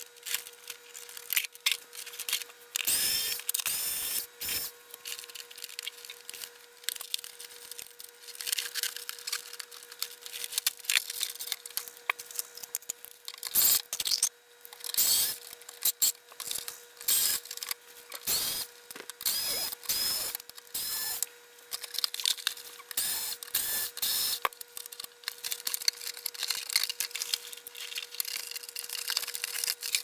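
Cordless electric screwdriver running in short bursts to back out screws, mixed with irregular clicks, knocks and scrapes of a hard plastic appliance case being handled and pried apart.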